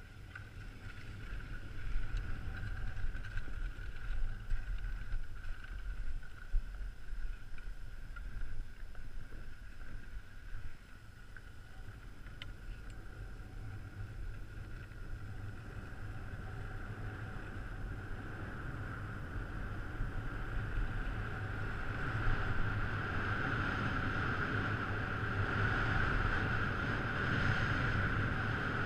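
Skis sliding on groomed snow, a steady hiss, with wind rumbling on the microphone of a body-mounted action camera; both grow louder as speed builds in the second half.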